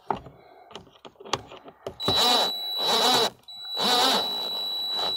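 Cordless impact driver with a Torx bit run in two bursts of about a second and a half, driving a fender bolt into a nylon-insert lock nut with a steady high motor whine. A few light clicks come before the first burst.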